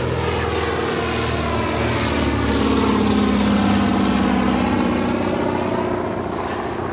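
Propeller aircraft passing over with a steady engine drone. It grows louder towards the middle and then fades away.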